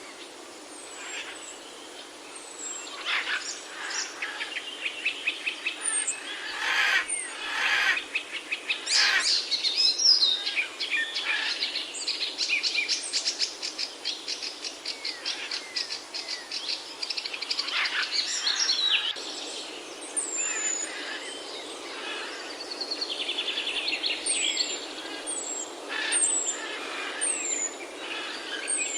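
Several birds chirping and singing together, with fast rattling trills and rapid repeated notes, and short high whistles that slide downward.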